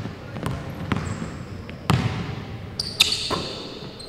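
A basketball bouncing on a hardwood gym floor, about five uneven dribbles, each ringing on in the echoing hall. Sneakers squeak on the floor, loudest about three seconds in.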